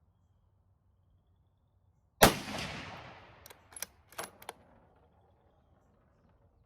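A single rifle shot from a Savage Axis bolt-action in .223 Remington, a sharp crack whose echo fades over about a second and a half, followed by four sharp clicks in quick succession.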